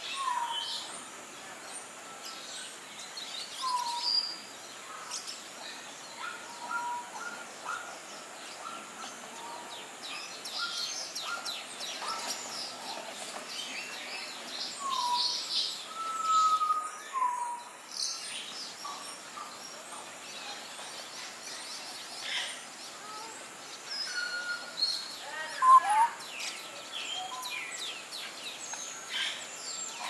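Assorted birds calling: short whistled notes sliding down in pitch, repeated every few seconds, over scattered high chirps, with one louder wavering call about three quarters of the way through.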